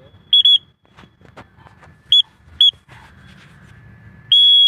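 Sharp, loud whistle blasts at one steady high pitch, used to call a flying pigeon down: a quick double blast, then two short single blasts half a second apart, then a long held blast near the end.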